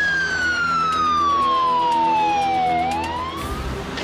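Ambulance siren wailing. Its pitch falls slowly from the top of its sweep for nearly three seconds, then starts to rise again, over a steady low vehicle rumble. Near the end it gives way to a broader rushing noise.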